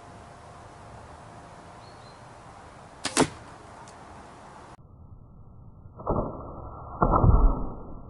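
An arrow with a hunting broadhead leaves the bow with a faint snap and strikes a pumpkin with a sharp crack about three seconds in. Later come two duller, deeper thuds; the second is longer and as loud as the hit.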